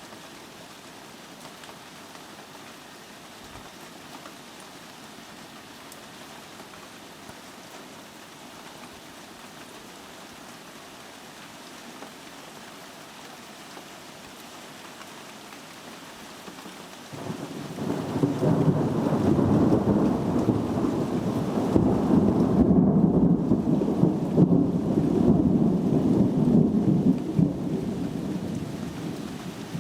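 Steady rain hiss, then about 17 seconds in a long roll of thunder breaks in suddenly, rumbles loudly for about ten seconds, and fades away near the end.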